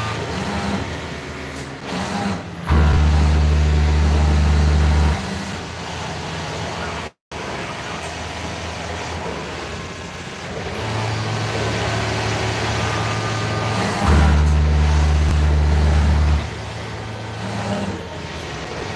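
Garment-factory machine noise: a steady low hum, with industrial sewing machines running in two bursts of about two and a half seconds, one about three seconds in and one near fourteen seconds.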